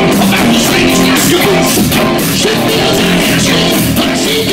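Hard rock band playing live through a PA, with electric guitar and drums and a singer's voice over them.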